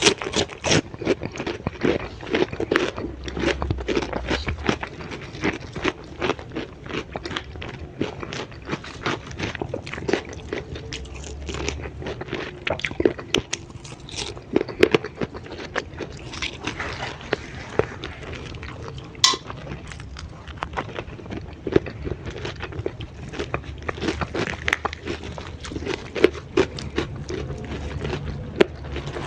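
Close-miked eating: a person biting and chewing a meal of grilled chicken and raw vegetables, with many crisp, irregular crunches and mouth sounds.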